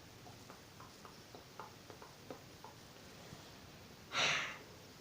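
Faint, scattered small clicks of handling, then about four seconds in one short breathy puff close to the microphone, an exhale or sniff.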